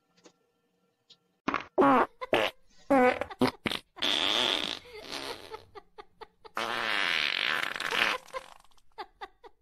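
A series of fart sounds: several short sputtering ones, then two long drawn-out ones about four and seven seconds in.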